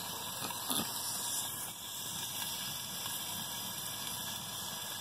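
Steady hiss of a wood cooking fire burning high in a wheel-rim fire pit, with sausage cooking in a lidded cast-iron skillet set on it.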